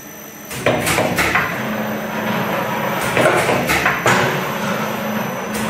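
Sandorè food-forming machine running: a steady motor hum and mechanical noise, broken by sharp knocks that come in clusters of two or three every couple of seconds as it forms dough pieces and sets them on the conveyor.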